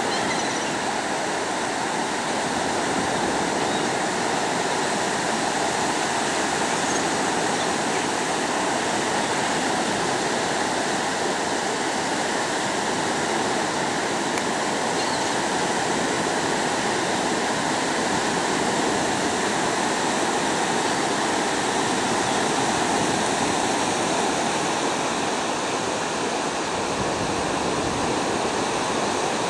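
Ocean surf breaking on a beach: a steady, unbroken wash of waves.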